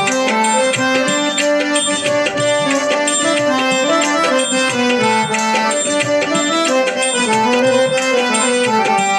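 Instrumental interlude of Indian devotional music: tabla playing a steady rhythm under a stepping melody line on a reed- or keyboard-like instrument.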